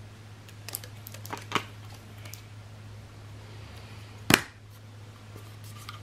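Plastic PET bottle handled while braided fishing line is wound onto it: a few light clicks and taps in the first two seconds, then one sharp click about four seconds in, over a steady low hum.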